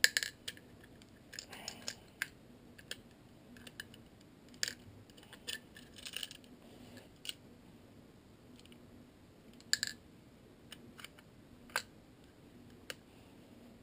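Scattered sharp clicks and light metallic clinks from small parts of a Hi-Capa airsoft pistol being handled and fitted together during reassembly, with a few louder ticks among fainter handling noise.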